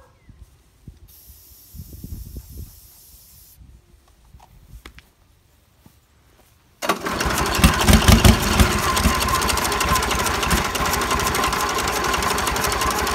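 An aerosol can of starting fluid hisses for a couple of seconds as it is sprayed. About seven seconds in, a four-cylinder two-stroke Nissan diesel with a blower, unrun for 17 years, fires on the starting fluid and runs loud and rattly.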